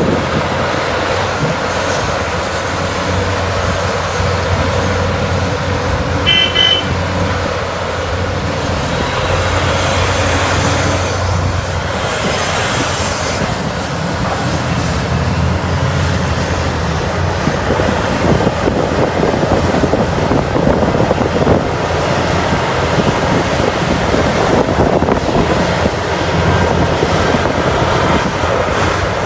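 Heavy mining machinery working, its large diesel engines running steadily. A short high-pitched beep sounds about six seconds in.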